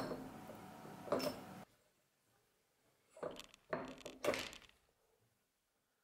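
A few short knocks and clinks of metal parts being handled while a heated worm wheel is shrink-fitted onto a dividing head's spindle: one about a second in, then a small cluster between about three and four and a half seconds in, with dead silence between.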